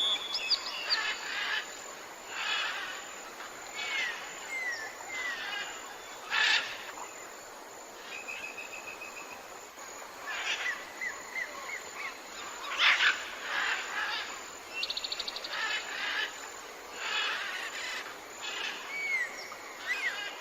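Jungle bird chorus, several birds calling over one another with short chirps and bending whistled notes. There is a held whistle about eight seconds in and a fast trill about fifteen seconds in.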